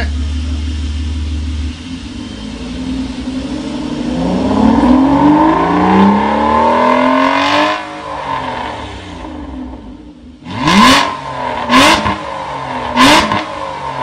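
Aston Martin Rapide S's V12 engine through an Fi Exhaust valved catback system, revved while parked: idling, then one long rev climbing steadily for several seconds before dropping back, followed by three quick sharp throttle blips near the end.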